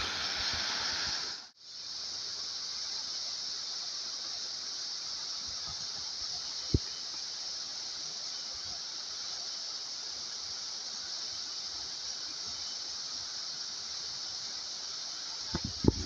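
Waterfall running: a steady hiss of falling water, cut off for a moment about a second and a half in, with one small knock near the middle.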